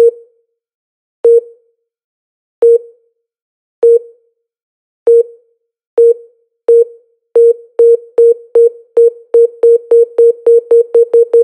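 An electronic beep sound effect: the same short mid-pitched tone repeating, each beep dying away quickly, at first about a second and a quarter apart and speeding up steadily to about four a second by the end.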